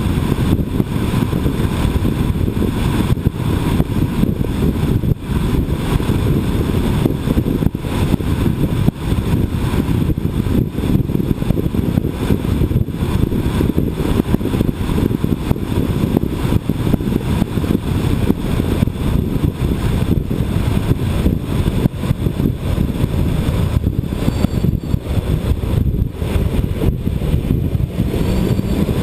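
Steady, loud low rumble of road and wind noise from travel along a busy road, with no distinct events.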